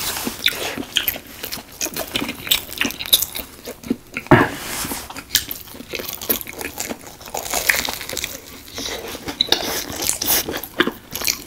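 Close-miked chewing and crunchy bites of deep-fried Korean hot dogs, with many small crackles and wet mouth sounds. A loud crunchy bite comes a little over four seconds in.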